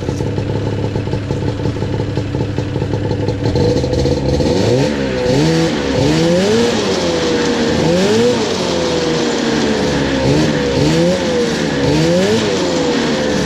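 1980 Ski-Doo Blizzard 9500 Plus snowmobile's two-stroke engine running steadily, then revved again and again from about four seconds in, its pitch rising and falling with each blip of the throttle.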